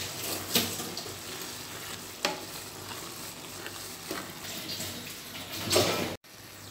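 Wooden spoon stirring and scraping grated carrot halwa as it fries and sizzles in a pan, with a louder scrape about every one and a half to two seconds. The sound cuts out for a moment near the end.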